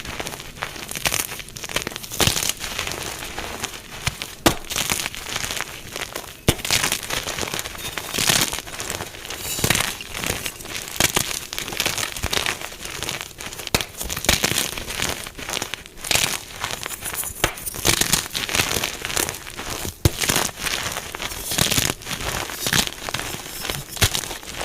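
Dyed gym chalk blocks being crushed: a dense, uneven run of crunching and crumbling with many sharp crackles.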